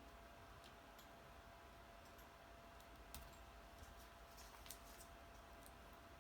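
Near silence with a few faint, scattered clicks of paper pieces and foam tape being handled, over a faint steady hum.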